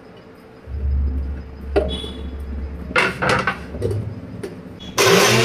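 Chopped onion scraped off a wooden board into a steel mixer-grinder jar, with a low rumble and several knocks and clinks on the jar as the lid goes on. About five seconds in, the electric mixer grinder starts with a sudden loud whirr as it grinds the onion to paste.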